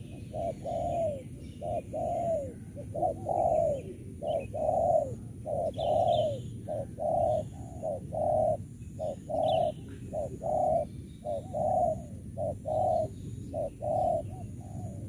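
Spotted doves cooing: a long run of short, rounded coos, about two a second, that stops near the end, with faint high chirps of small birds above.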